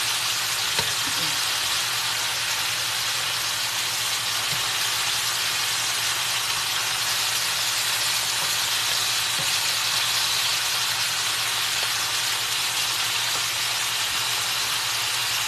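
Seasoned pork loin slices sizzling steadily in a hot wok, with a few faint knocks of wooden spoons turning the pieces about a second in.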